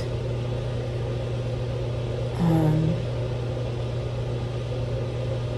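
Steady low hum with an even hiss, the background of a small room; about halfway through, a short, wordless vocal murmur from a woman.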